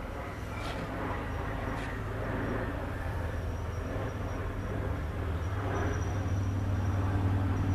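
Steady low hum with a rumble underneath, slowly getting louder, and two faint clicks in the first two seconds.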